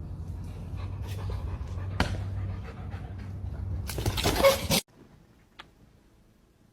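A dog panting, with a few short sharp noises and a louder noisy burst a little after four seconds in. Then the sound cuts off abruptly.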